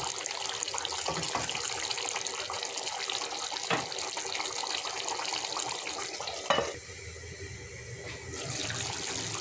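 Chicken curry simmering and sizzling in a steel pot while a wooden spatula stirs and scrapes it from the bottom. A little past the middle a metal lid is set down on the pot with a single knock, and the sizzling turns quieter under it.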